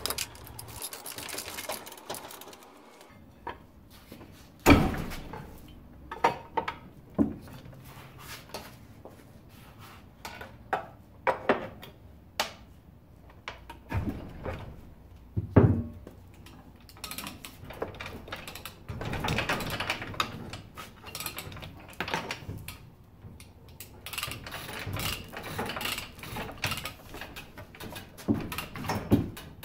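Metal clunks, knocks and scraping as a Johnson 140 hp outboard powerhead is worked up off its exhaust housing studs on a chain hoist. The loudest knocks come about five seconds in and midway through, with longer stretches of scraping and rattling in the second half.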